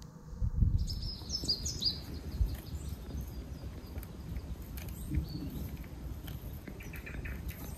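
Small birds calling with short, high, falling chirps over a steady low rumble. Scattered faint clicks run through it, fitting a dog gnawing on a stick.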